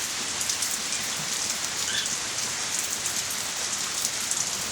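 Steady rain falling, an even, dense hiss of many drops.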